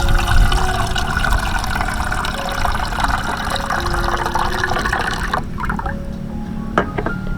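Heavy rain falling in a dense, even hiss over soft background music. About five seconds in, the rain cuts off abruptly, leaving a lower rumble. A sharp knock comes near the end.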